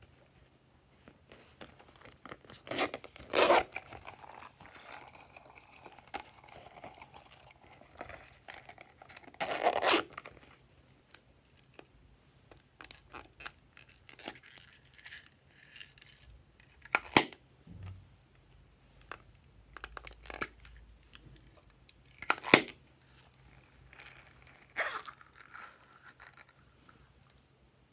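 Hands handling plastic slime containers and their contents: a run of crinkles, scrapes and clicks, with four louder rustling bursts spread through, as containers are opened and slime and small sprinkles are tipped into a glass dish.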